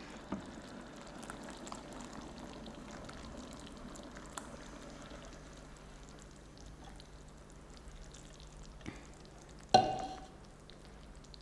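Thick coconut milk poured into a pan of payasam cooking on the stove, with faint simmering and stirring sounds. A short, louder knock comes about ten seconds in.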